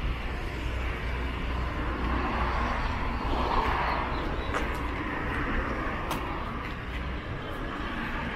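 Street traffic ambience: a steady low engine rumble with road noise, easing off a little near the end, and a few faint clicks.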